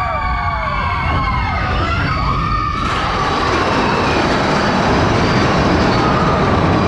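Roller-coaster mine train rumbling along its track, with several high, overlapping wailing tones rising and falling over it for the first three seconds. About three seconds in the tones fade and a louder, steady rumble of the train takes over.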